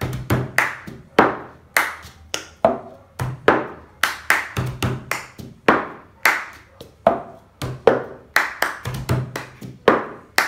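Hand claps and a plastic cup being picked up and struck down on a tabletop, repeating a fixed rhythm pattern over and over: the clap-grab-strike cup rhythm game, played at an even pace.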